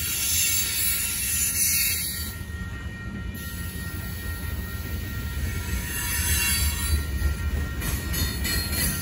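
Freight cars of a manifest freight train rolling past through a grade crossing: a continuous low rumble of wheels on rail under a high-pitched squeal and hiss from the wheels. A crossing bell rings steadily throughout.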